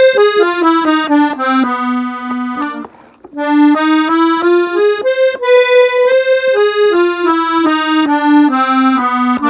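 Gabbanelli button accordion tuned in F playing a quick ornamental run (adorno) in E-flat. It breaks off briefly about three seconds in, then plays a second run of quick stepping notes.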